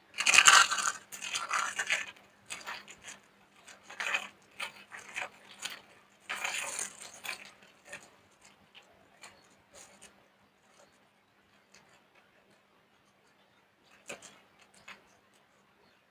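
Dried soap crushed by hand, crunching and crumbling in repeated bursts. The loudest crunch comes just after the start, the bursts come in clumps and then thin out to faint scattered crackles, with two small sharp crackles near the end.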